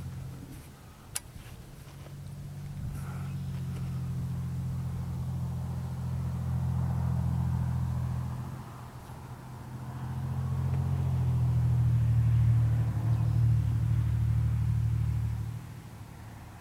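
A motor vehicle's engine running with a low, steady hum that swells, eases off briefly, grows louder again, then cuts off suddenly near the end. A single sharp click sounds about a second in.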